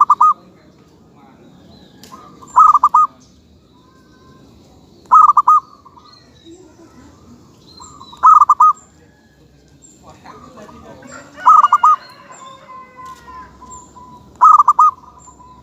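Zebra dove (perkutut) calling: a short burst of rapid cooing notes repeated six times, about every three seconds. Faint high chirps from other birds sound between the calls.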